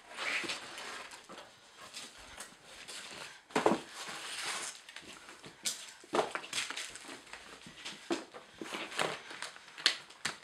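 Brown paper bag crinkling and rustling in the hands, in irregular bursts with a few sharper crackles.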